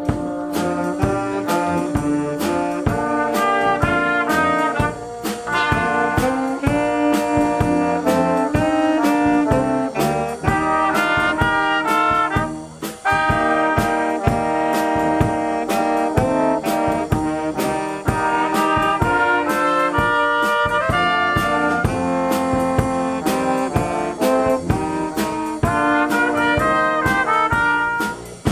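Brass band music with a steady beat: held, changing notes over regular percussion.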